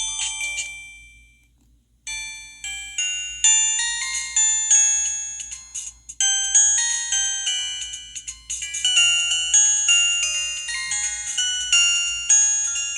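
Downloaded polyphonic ringtones playing on a Samsung SGH-T629 mobile phone. One melody fades out within the first second or two. A new bell-like melody of quick, glockenspiel-like notes starts about two seconds in and runs on, with a brief break near the middle.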